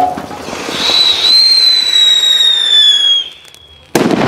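Firecracker burning with a hiss that turns into a loud whistle, held for about two and a half seconds and sliding slightly down in pitch. After a brief lull it goes off with a sharp bang near the end.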